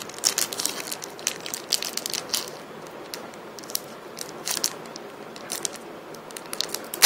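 Foil trading-card packet crinkling and crackling as it is handled. The crackles come thickest in the first two and a half seconds and are sparser after.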